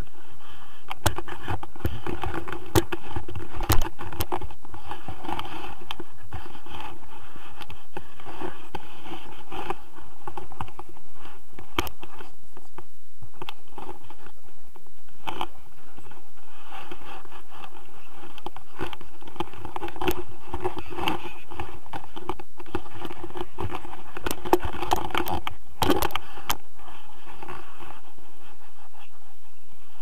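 Wind buffeting an action camera's microphone in paraglider flight: a steady rush that swells and eases. Scattered clicks and knocks come from the camera and its mount being handled.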